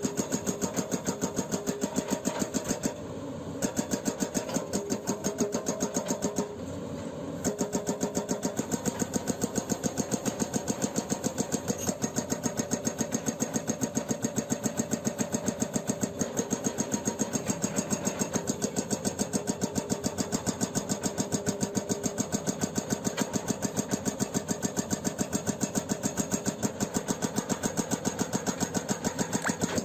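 Excavator-mounted hydraulic breaker hammering with rapid, even blows over the excavator's diesel engine running. The hammering stops briefly twice in the first several seconds, then runs on without a break.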